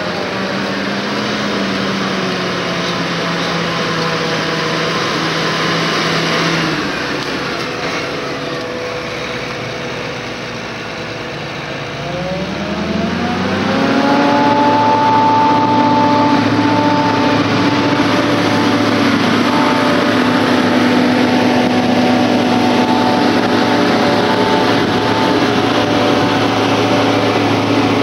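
Diesel engines of a self-propelled forage harvester and a John Deere tractor pulling a silage wagon alongside it while chopping haylage. An engine note falls at the start and runs lower for a while, then about twelve seconds in it rises steeply and holds a steady high pitch under load.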